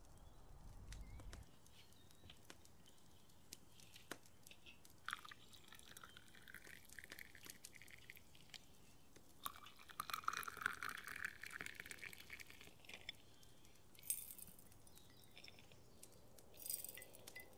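Faint tea pouring into glass mugs, in two runs. Then a rock sugar stick clinks sharply against the glass, twice, near the end.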